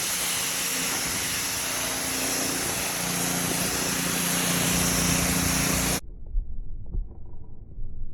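A steady engine-like mechanical drone with a strong high hiss and a few steady hum tones, cutting off abruptly about six seconds in and leaving only a faint low rumble.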